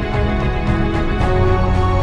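Background music with sustained chords, the harmony shifting about a second in, played over the airshow's PA.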